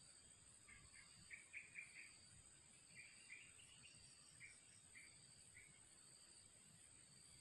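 Faint steady insect trilling that pulses a couple of times a second, with a run of short, high bird chirps from about one second in to around the middle.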